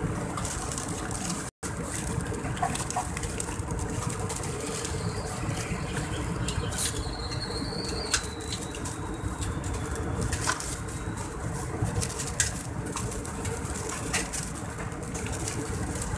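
Airbus A320 cabin noise in flight, a steady drone of engines and air, with scattered crinkles and clicks of plastic food wrapping being handled.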